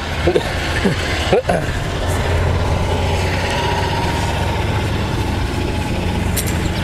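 An engine idling steadily nearby, a continuous low drone.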